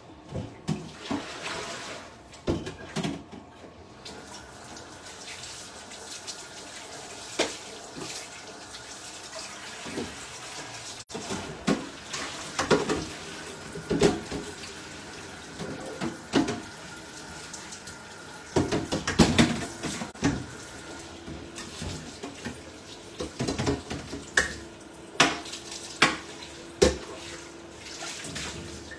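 Kitchen tap running into a stainless-steel sink while a pan and kitchenware are washed, with frequent irregular clatters and knocks of metal, busiest around the middle.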